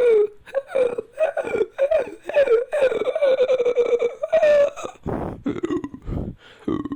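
Made-up ape-like creature calls voiced by a person: a quick series of short pitched hoots and whimpering cries, then lower, rougher grunts about five seconds in.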